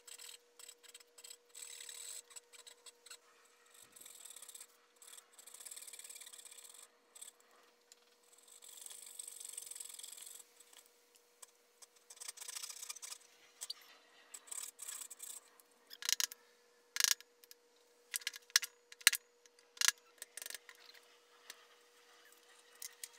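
Small dozuki pull saw cutting dovetails in a board held in a vise: rasping saw strokes in stretches. Near the end come several sharp knocks, the loudest sounds.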